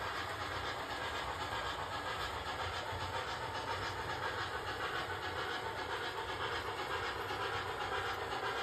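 HO scale model passenger trains running on the layout's track: a steady rolling noise of wheels and motors, with no distinct events.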